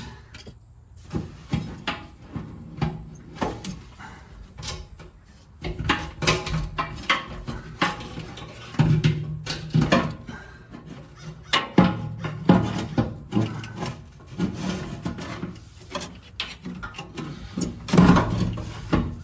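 Background music with intermittent knocks and clatter running through it.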